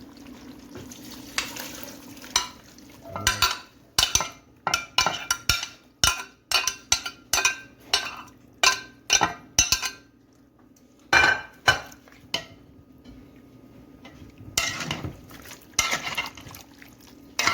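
A spoon stirring seasoning through chicken in a pot, knocking and scraping against the pot in a run of clinks about twice a second, then a single sharp knock and a rougher stretch of scraping near the end.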